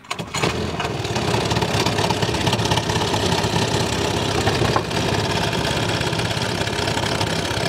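Small Lombardini boat engine running loudly and steadily close to the microphone. The sound comes in abruptly a fraction of a second in.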